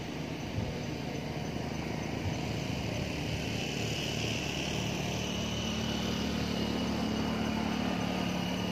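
Steady motor vehicle engine noise, with a low drone that grows stronger through the second half, as if the vehicle is drawing nearer; a brief knock sounds just after the start.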